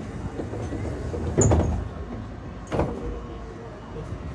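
Interior of an Eizan Electric Railway car: a steady low rumble, with a loud thump about one and a half seconds in and a lighter one near three seconds.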